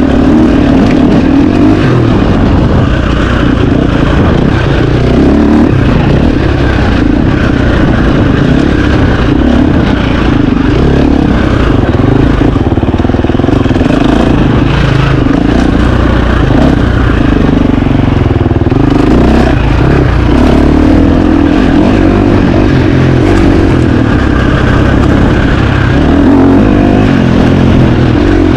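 2025 KTM 350 XC-F single-cylinder four-stroke dirt bike engine running hard, its revs rising and falling continually with the throttle.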